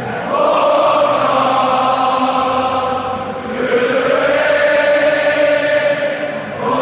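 A stadium crowd of Liverpool FC supporters singing together in slow, drawn-out notes, moving to a new note about every three seconds.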